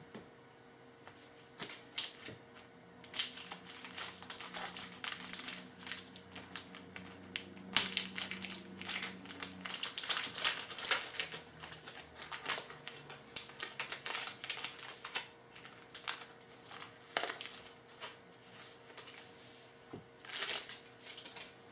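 Trading cards and their pack wrapper being handled: irregular flicks, rustles and crinkles as cards are shuffled and sorted by hand.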